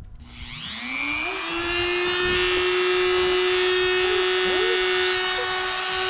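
Dremel rotary tool with a cutoff wheel switched on, spinning up in pitch during the first second and then running at a steady whine.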